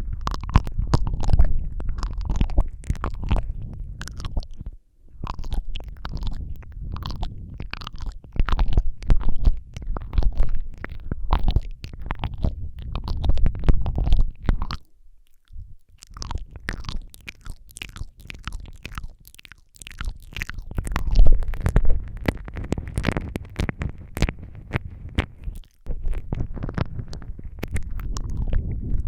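Close-miked ASMR mouth sounds: a dense, irregular run of wet lip and tongue clicks and smacks over a low rumble, pausing briefly three times.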